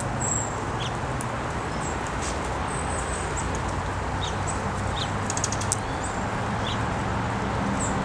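Wild songbirds giving short, high chirps and tweets scattered over a steady low background rumble, with a quick run of clicking ticks about five and a half seconds in.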